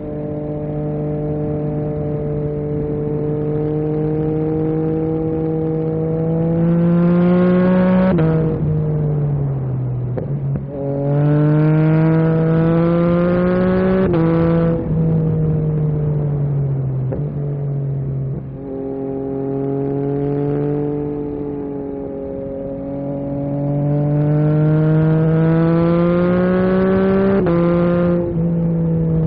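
Yamaha MT-09 SP's three-cylinder engine through an Akrapovic carbon racing exhaust, accelerating hard in long rising runs. It drops in pitch at three upshifts, about 8 s, 14 s and 27 s in, and eases off between the runs.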